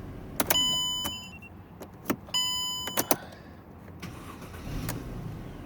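Two electronic chimes about two seconds apart, each a bright tone that fades away in under a second, with sharp clicks around them.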